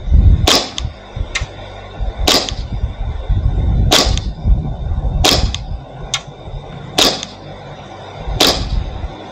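Novritsch SSP5 gas blowback airsoft pistol firing six shots about a second and a half apart, each a sharp crack, with a few fainter ticks between them. Wind rumbles on the microphone underneath.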